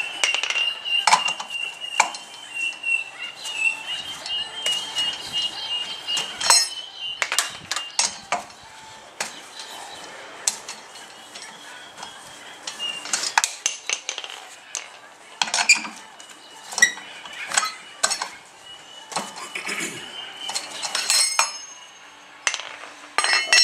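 Metal clinks and rattles of a wheel spanner spinning wheel nuts off a car's front wheel and the loose nuts being handled, in irregular sharp strikes. A thin high steady tone sounds through the first several seconds and again later.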